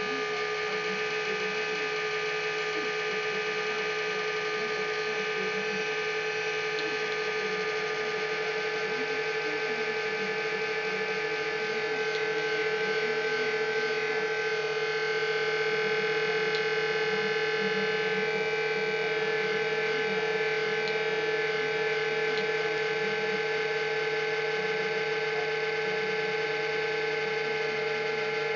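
Cooling fans of a Powerman Smart 1000 INV uninterruptible power supply running, a steady hum with several held tones, growing a little louder about twelve seconds in.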